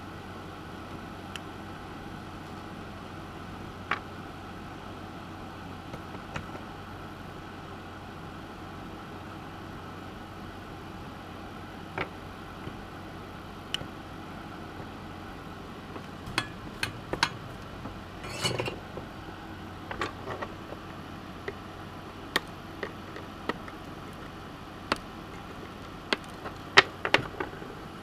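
Scattered small clicks and taps of electronic components and hand tools handled on a circuit board, over a steady hum. The clicks come in clusters about halfway through and again near the end.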